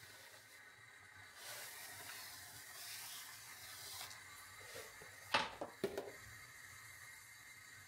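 Quiet kitchen handling noises: soft rubbing and hissing, then two sharp knocks about half a second apart, a little past the middle.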